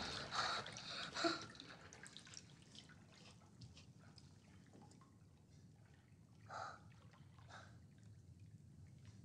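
Faint bath water dripping and trickling, with small soft splashes. It is a little louder in the first second or so, then very quiet with a couple of soft drips or splashes later on.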